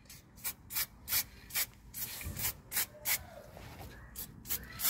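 Aerosol can of wax oil sprayed in a dozen or so short hissing bursts onto a newly fitted differential lock actuator, coating it against water and mud.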